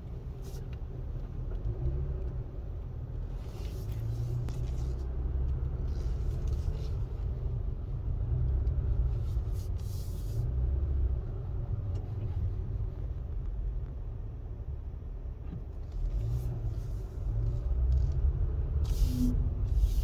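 Acura TLX Type S cabin while driving: steady low road and drivetrain rumble, with short higher-pitched noises every few seconds. This is the noise the owner hears when turning the car.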